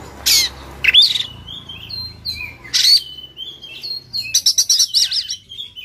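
Oriental magpie-robin singing in a combative, tail-fanning mood: clear whistled notes broken by harsh, rasping 'shot' calls, with a fast chattering run about four and a half seconds in.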